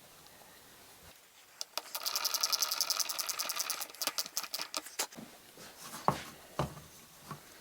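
A power drill driving a 1¼ inch wood screw, a fast-repeating mechanical run lasting about three seconds, followed by a few sharp knocks.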